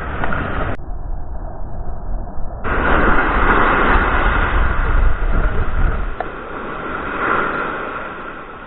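Strong gusty wind buffeting the microphone: a loud, rumbling noise that eases off about six seconds in.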